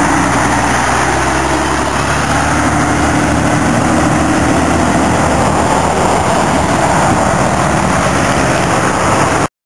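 Mercedes-Benz O371RSD coach passing close by and pulling away down the highway, its engine and tyres mixed with steady traffic noise. The sound cuts off suddenly near the end.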